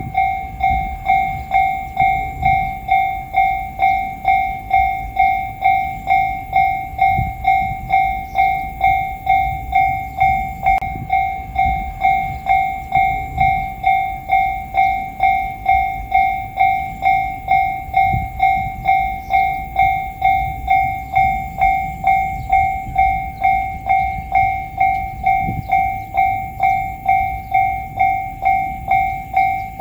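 Japanese railway level-crossing alarm bell ringing its steady "kan-kan" ding, evenly repeated about one and a half times a second.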